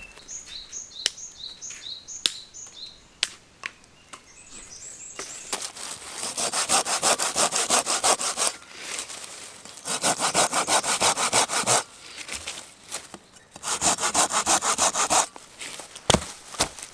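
A hand saw cutting through firewood in three bouts of quick back-and-forth strokes, with short pauses between them.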